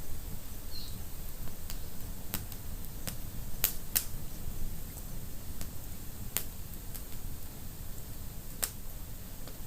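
Wood fire in a fireplace crackling, with sharp pops at irregular moments over a low, steady rumble of the flames. The loudest pops come as a close pair a little before halfway through, with single ones later.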